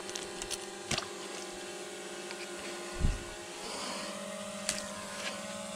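Camera drone hovering overhead: a steady multi-toned hum from its propellers that shifts slightly in pitch partway through, with a few faint clicks and a dull thump about three seconds in.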